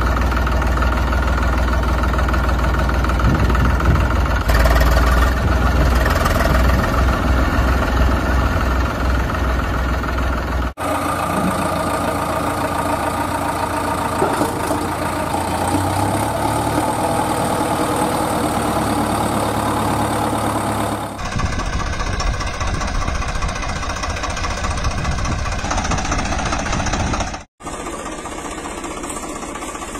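Heavy vehicle engine running with an idling, knocking beat, heard as tractor and backhoe-loader engine sound. It changes abruptly about 11 and 21 seconds in and cuts out for a moment near the end.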